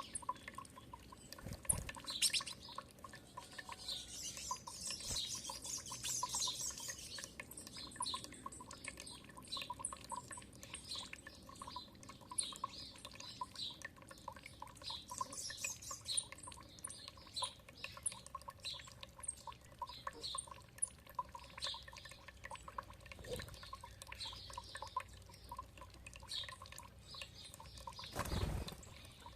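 Small songbirds chirping with many short, high calls over the steady trickle and drip of running water. A brief, louder dull rush cuts in about a second before the end.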